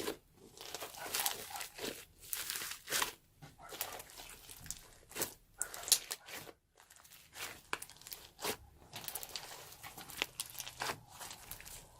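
Slime being mixed with crunchy foam, giving a run of irregular crunchy crackles and sticky pops.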